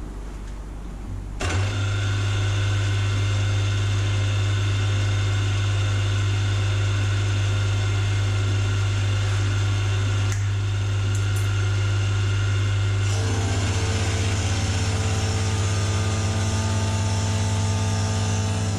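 Milling machine switched on about a second and a half in, then running steadily with a strong low hum. About thirteen seconds in, more steady tones join.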